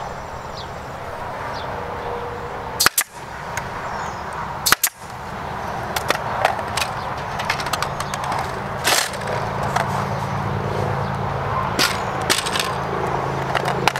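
Pneumatic stapler firing twice into the wooden frame: two sharp bangs about two seconds apart. Then a run of clicks and knocks as the wooden, wire-mesh cage is handled and turned over, with a steady low hum coming in about halfway through.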